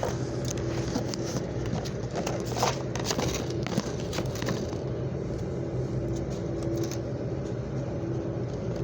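Steady engine hum with a constant low drone, with a few faint ticks and knocks over it; no gunshots.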